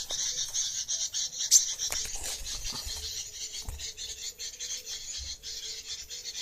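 High, raspy, rapid chattering calls of small songbirds, the kind of call mix used to lure sunbirds and tailorbirds. The chattering runs on steadily without a break.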